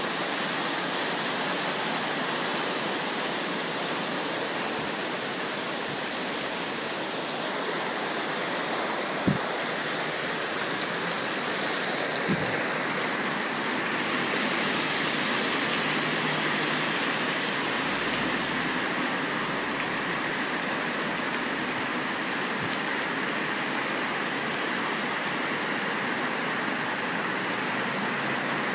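Rain mixed with small hail falling steadily, a constant hiss of drops hitting the pavement and splashing into a pickup truck's water-covered load bed. Two sharper taps stand out, about nine and twelve seconds in.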